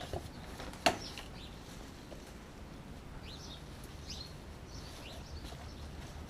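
Small birds chirping, a series of short rising chirps from about three seconds in, with one sharp knock about a second in.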